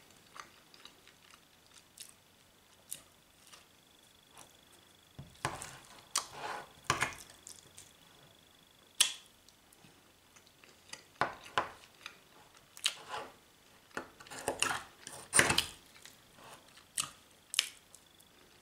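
Metal spoon clicking and scraping against an open tin can while scooping out canned ham, in irregular sharp clinks with short scrapes between, mixed with close-up chewing.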